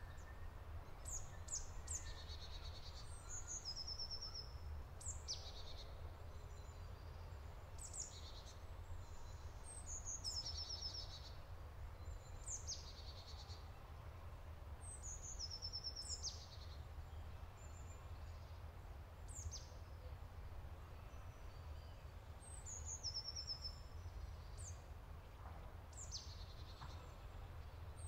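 Songbirds singing in the trees, short high phrases of quick downward sweeps and trills repeating every second or two, over a steady low rumble.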